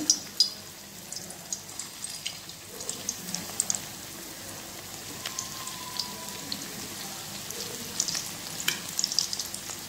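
Sabudana vadas (potato and sago balls) deep-frying in oil and ghee kept on high flame, a steady sizzle with scattered sharp pops and crackles, the loudest just after the start as the last balls go in.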